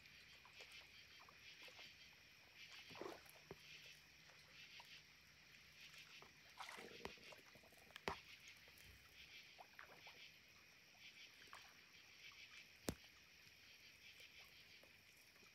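Faint night ambience: a steady, pulsing high chirring chorus, with a few scattered sharp knocks. The knocks fit blue catfish bumping the houseboat's hulls as they gulp down a mayfly hatch.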